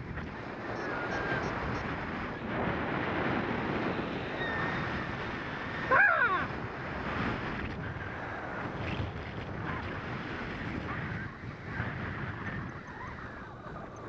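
Steady rush of wind over the camera's microphone from a paraglider in flight. About halfway through comes one brief, louder sound with several wavering pitches.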